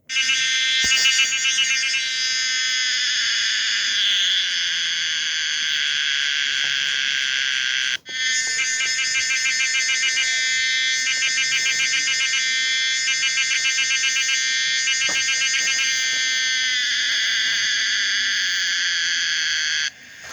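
Homemade recreation of the song of the Pomponia linearis cicada: a loud, high-pitched drone with passages of rapid pulsing. It cuts out briefly about eight seconds in and stops shortly before the end.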